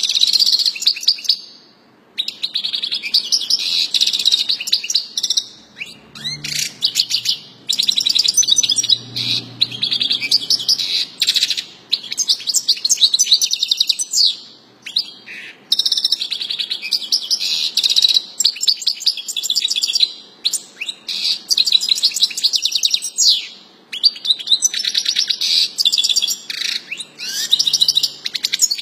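European goldfinch singing: long runs of fast twittering and trills, in phrases a few seconds long broken by brief pauses.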